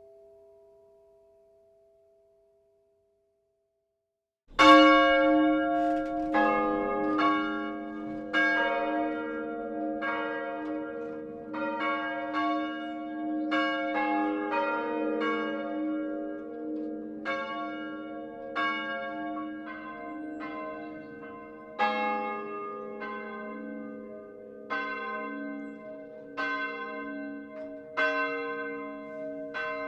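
Church bells ringing. A last tone fades out at the start, then after a short silence several bells of different pitch are struck one after another, about one strike a second, each ringing on under the next.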